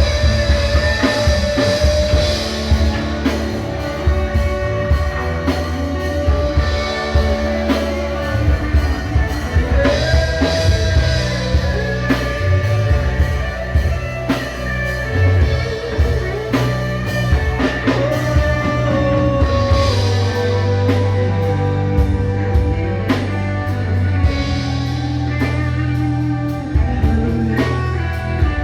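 Church worship band playing a slow song: drum kit and guitar over deep held bass notes, with a melody line holding long notes and sliding between them.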